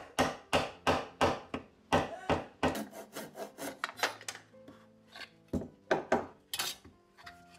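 Pull saw cutting the protruding ends of glued-in wooden dowels flush, in quick back-and-forth strokes about three a second. The strokes pause about four and a half seconds in, then a few more follow.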